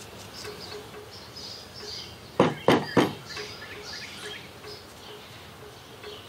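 Birds chirping over a steady background hiss, with three short, loud clatters about two and a half seconds in.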